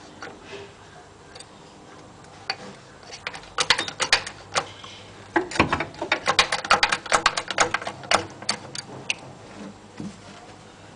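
Rapid clicking, several clicks a second, in two runs about four and six seconds in, from working the bottle jack and sleeve press set up under a Mercedes Vito subframe bushing.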